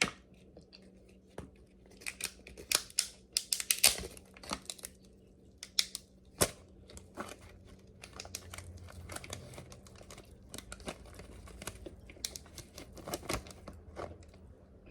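King crab leg shells being cracked and pulled apart by hand: an irregular run of short cracks and crinkling snaps.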